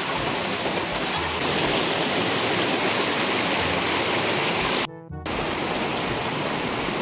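Steady rushing of a shallow rocky mountain stream cascading over boulders, broken off briefly about five seconds in.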